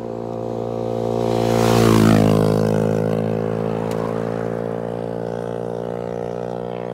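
A motor vehicle passes close by, loudest about two seconds in with its pitch dropping as it goes, over a steady engine hum.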